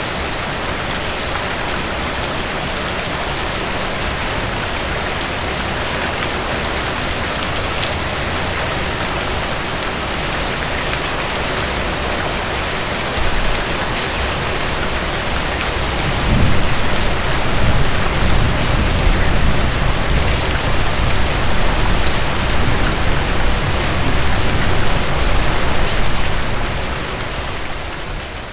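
Heavy rain falling steadily, a dense hiss of drops. A deep low rumble swells in a little past halfway, lasts about ten seconds and eases off near the end.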